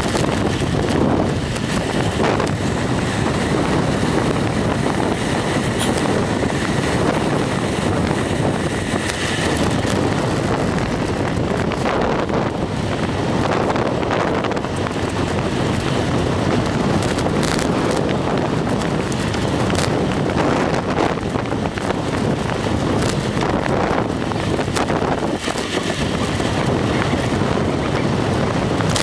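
Steady wind rushing over the microphone of a camera moving along a road, with road noise underneath.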